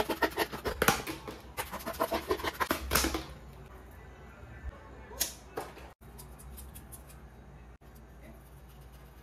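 Scissors cutting through corrugated cardboard: a rapid, irregular run of snipping clicks for about the first three seconds, then only a couple of isolated light handling sounds.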